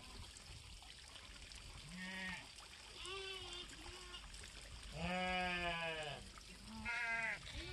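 Farm animals bleating: about five separate bleats, the longest lasting about a second just past the middle.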